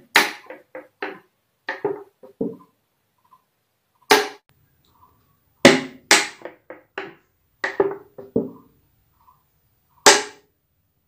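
Empty plastic water bottle, capped tight while still warm inside, crackling and popping as its walls buckle inward on their own: the air inside is cooling and the outside air pressure is crushing it. Clusters of sharp cracks come irregularly, with silent gaps of up to about a second and a half, the last one near the end.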